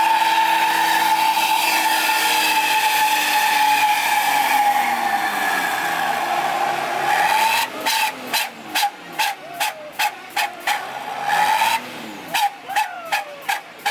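Bus 'telolet' multi-tone horns: long, wavering, snaking tones for about seven seconds, then a quick run of short blasts, about three a second, with a brief pause before more blasts near the end.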